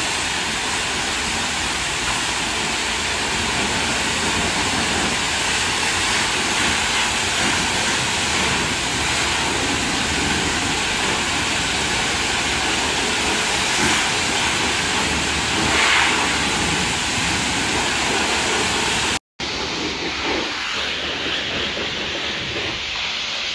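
High-pressure washer spraying water onto a car, a loud steady hiss of the jet. It cuts off suddenly near the end, giving way to a quieter background.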